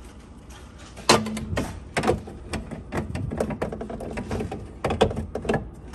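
Plastic clicks and knocks of a refrigerator water filter cartridge being handled and fitted into its housing. A sharp click with a brief squeak comes about a second in, then a run of irregular clicks and rattles.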